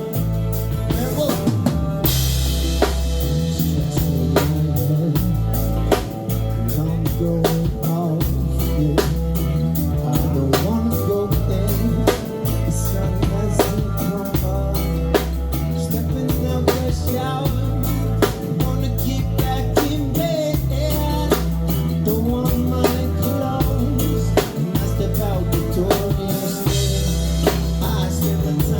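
Live band playing an instrumental passage: a drum kit keeping a steady beat of kick, snare and rimshots over a heavy bass line and other instruments. Cymbals crash about two seconds in and again near the end.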